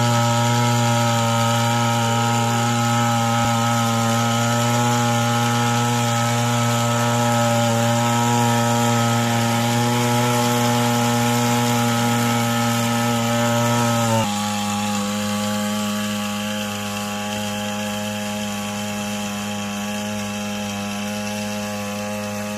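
Backpack power sprayer's small two-stroke engine running steadily at high speed while it sprays water. About two-thirds of the way through, its speed drops suddenly to a slightly lower steady pitch.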